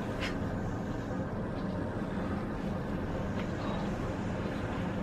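Steady outdoor background rumble, even and unbroken, with a faint brief high sound just after the start.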